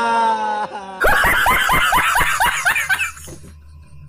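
A voice held on one drawn-out sound, then laughter about a second in: a quick run of short laughs, several a second, fading out after about two seconds.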